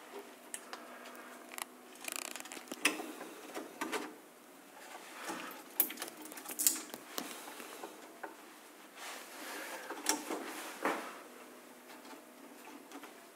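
Hands handling amplifier-kit parts and wiring: irregular small clicks, taps and rustles as leads and connectors are fitted, with a few sharper clicks around the middle.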